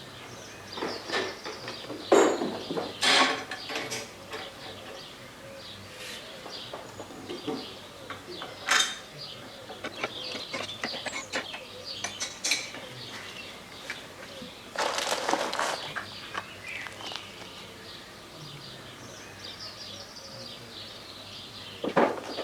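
Scattered metal clinks and knocks of hand tools and parts being handled on a workbench, a few of them heavier, with faint birdsong behind.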